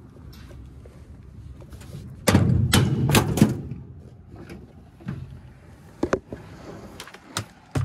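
Metal clattering and knocks from handling gear in an open steel utility trailer. About two seconds in there is a loud burst of clanks lasting about a second, then a few single knocks.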